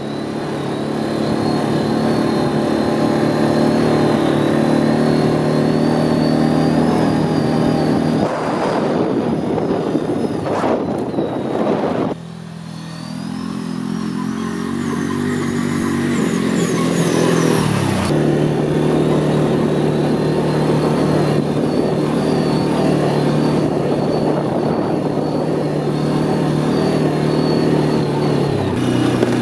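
Can-Am 450 ATV's single-cylinder engine running while riding, with the throttle eased off about twelve seconds in and the engine pitch then building back up.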